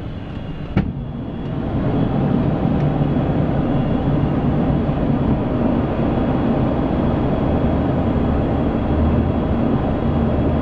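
ATR 72-600 cockpit on approach: a sharp click about a second in, then a steady rumble of turboprop and airflow noise that swells and holds louder as the landing gear extends into the slipstream.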